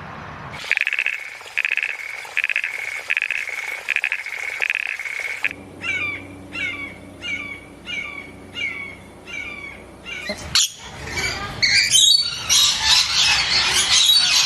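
Birds calling. First comes one call repeated about every three-quarters of a second, then a run of short falling chirps, then dense, louder chirping near the end. The sound changes abruptly between these parts.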